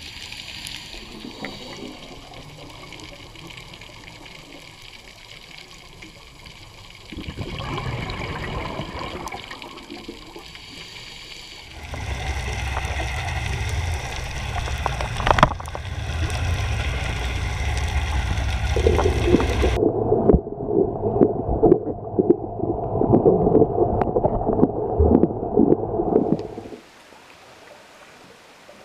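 Underwater sound picked up by a diving camera: muffled water noise that changes abruptly several times, loudest and crackling for several seconds near the end before dropping to a low hiss.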